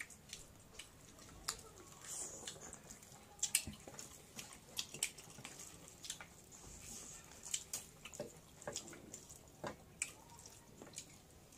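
Close-up eating sounds: a run of short, wet clicks and smacks from chewing, with rice being mixed by hand on steel plates.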